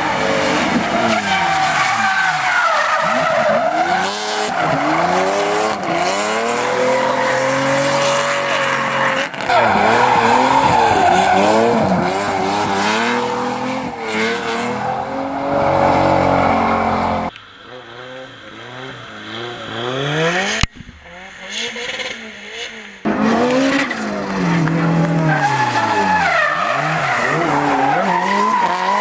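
Tuned drift cars sliding through bends, engines revving hard and rising and falling in pitch over and over as the drivers work the throttle, with tyres squealing. Several short takes follow one another, with a quieter, more distant run in the middle and a sharp click near the end of that run.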